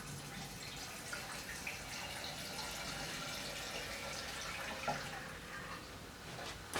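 Gasoline pouring steadily into a snowblower's fuel tank, easing off near the end. The fuel is running straight out the side through a disconnected fuel line.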